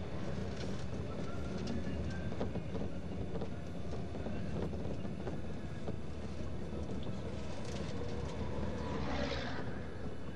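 Moving road vehicle: a steady low rumble of engine and road noise, with a short rushing swell of noise about nine seconds in.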